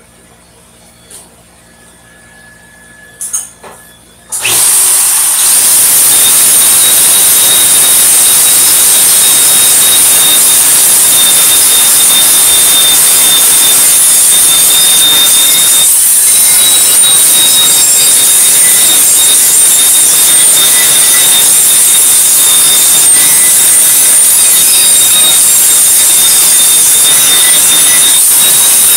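Angle grinder fitted with a wire brush wheel, starting up about four seconds in and then running steadily against a steel propane tank, stripping paint from the spot to be welded. A harsh hiss with a steady high whine.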